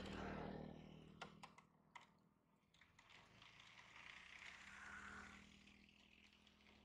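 Very faint, steady low hum of a Honda motor scooter's engine running while riding, with a few light clicks in the first two seconds.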